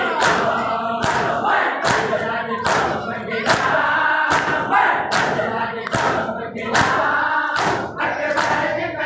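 A crowd of men chanting a Muharram mourning chant (noha) in unison while beating their chests in matam. The hands slap the chests in time with the chant, about three sharp strokes every two seconds.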